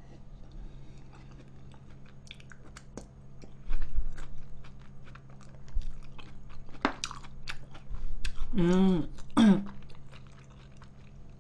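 Chewing and mouth sounds of a person eating instant jjajang noodles, with many small clicks of chopsticks against the cup. There is a louder burst about four seconds in and a brief vocal sound a few seconds before the end.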